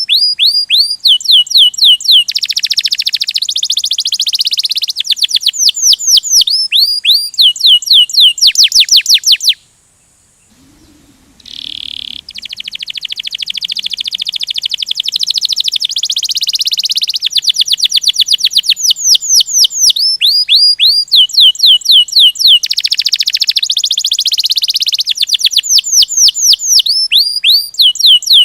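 Domestic canary singing a long rolling song: fast series of high falling notes alternating with dense buzzy rolls. The song breaks off for about two seconds near ten seconds in, then resumes.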